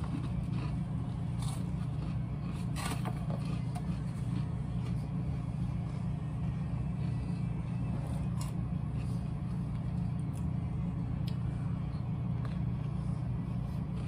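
Someone eating and drinking, with small scattered clicks, crackles and chewing from handling and biting a chicken sandwich topped with Cheetos, over a steady low hum.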